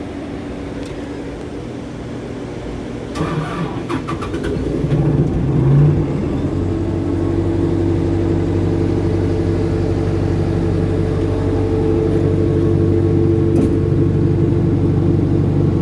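The Isuzu 4BG1 four-cylinder diesel engine of an Airman PDS390 air compressor is cranked by its starter about three seconds in and catches within a couple of seconds. It briefly surges, then settles into a steady idle.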